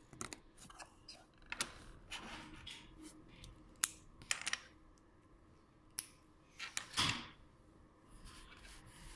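Plastic Lego bricks being handled and pressed together on a tabletop: scattered sharp little clicks and taps, with a few short scuffs of hands on the pieces.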